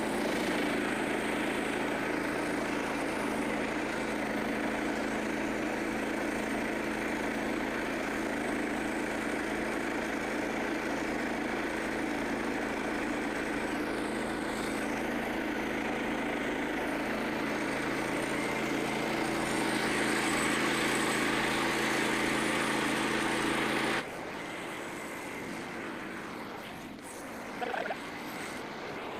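Small gasoline engine of a Frontier portable sawmill running at a steady speed just after being pull-started. It cuts off abruptly about 24 seconds in, leaving quieter outdoor background with a couple of faint clicks.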